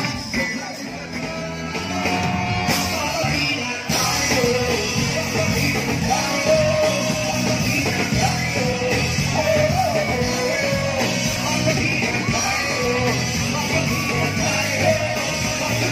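Live rock band playing with a singer's voice over the instruments. The sound changes abruptly about four seconds in, then the song carries on.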